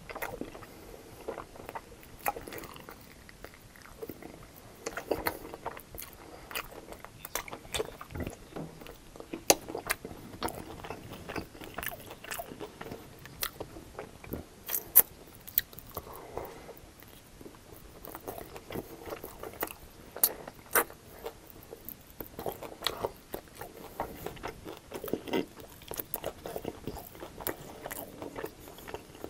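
Close-miked eating of crunchy breaded fried chicken wings: biting and chewing, with many sharp crunches of the fried coating scattered throughout.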